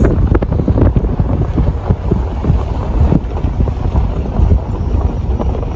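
Heavy wind buffeting the microphone: a loud, low rumbling noise that rises and falls unevenly.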